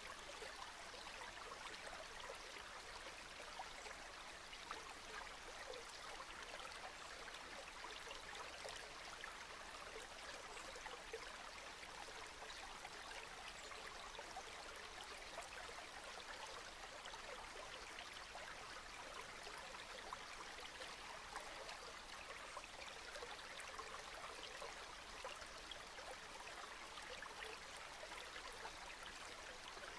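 Steady rain falling: an even hiss speckled with many small drop ticks.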